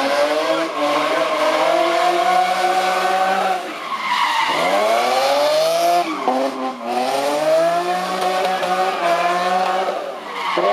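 BMW Z3 drift car's engine revving hard through continuous donuts, its pitch climbing and holding high, then dropping sharply and climbing again about four, six and a half and ten seconds in. Tyres skid and squeal under the wheelspin.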